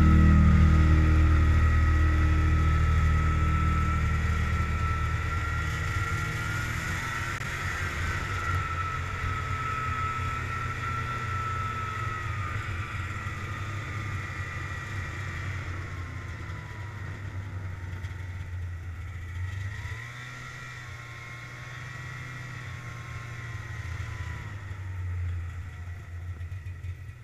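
Ski-doo Touring SLE 500 snowmobile running along the trail with a steady engine whine, which dips in pitch about two-thirds of the way in and then picks up again. The end of a song fades out over the first few seconds.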